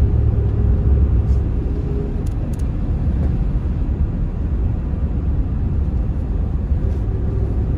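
Steady low rumble of tyres and engine heard from inside a moving car's cabin, cruising at highway speed.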